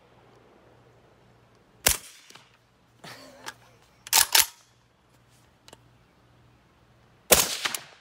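Suppressed OSC-13 rifle in 5.45x39mm with a Dead Air Sandman K suppressor firing a single shot about two seconds in, and another near the end. In between comes a rattle and two sharp metallic clacks, the action being worked by hand: the subsonic rounds are too weak to cycle it.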